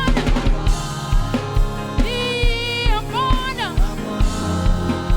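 Gospel music with a steady drum-kit beat, and a sung vocal line coming in about two seconds in.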